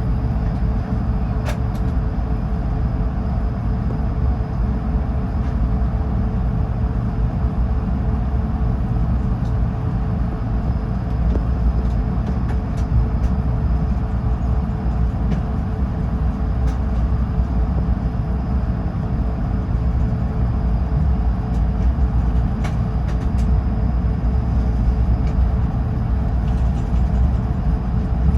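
Airbus A220-300 cabin noise while taxiing: a steady low rumble from the rolling airliner and its Pratt & Whitney PW1500G geared turbofans at taxi power, with a steady mid-pitched hum and a few faint clicks.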